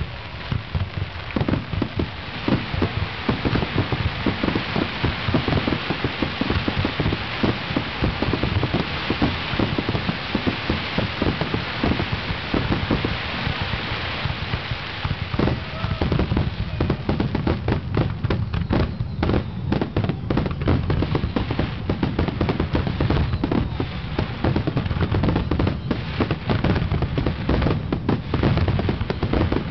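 Large fireworks display: a continuous barrage of aerial shells bursting and crackling, with many overlapping bangs every second. From about halfway through, single sharp bangs stand out more clearly.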